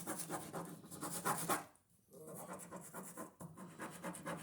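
Ballpoint pen scribbled rapidly back and forth on paper in two bouts, with a short pause about two seconds in: an old, dried pen being tested to see whether its ink flows again.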